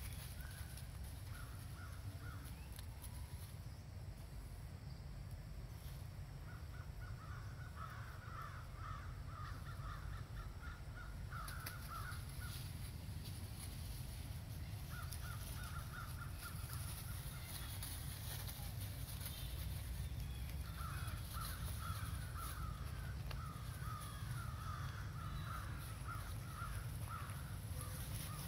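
Birds calling in long spells of rapid chattering, scratchy notes, several seconds at a time with pauses between, over a steady low rumble.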